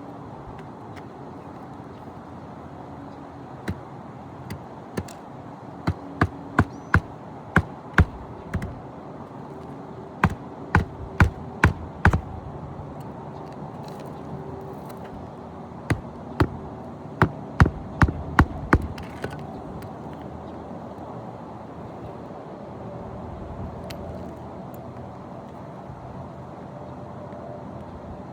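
Hammer driving roofing nails to fasten a shingle back down: runs of sharp, quick strikes about two a second, with pauses between the runs and none near the end, over a steady low background hum.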